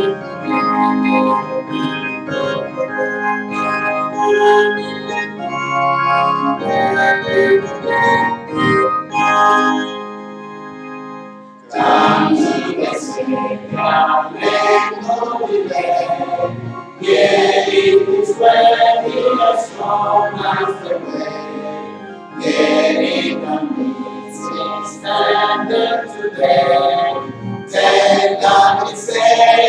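An organ plays a hymn's introduction; about twelve seconds in, the congregation starts singing the hymn together with it.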